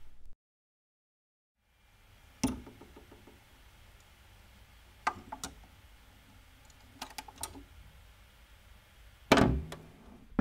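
Dual 621 turntable after the record's music has stopped: faint hiss with sharp clicks and knocks about every two seconds, the loudest near the end.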